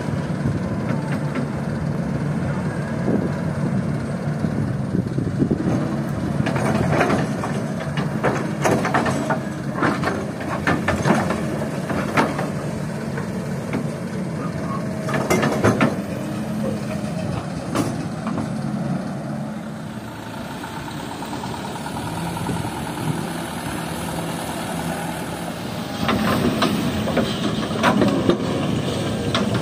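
Kobelco SK200 hydraulic excavator's diesel engine running steadily under load while it loads sand, with repeated clatters and knocks of sand and gravel spilling from the bucket into a steel dump-truck bed and of the bucket digging into the pile.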